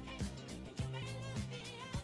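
Background music: an upbeat dance-pop track with a steady kick-drum beat, a held bass line and a wavering melody on top.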